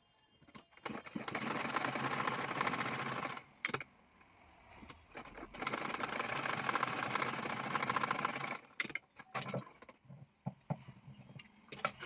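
Domestic sewing machine stitching in two runs of rapid, even needle strokes, each about two and a half to three seconds long, followed by a few short clicks and knocks as the fabric is handled and pulled out from under the foot.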